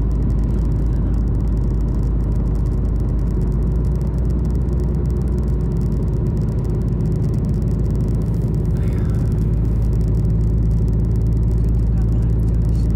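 Car driving steadily at highway speed, heard from inside the cabin: a constant low road-and-engine rumble with a steady hum.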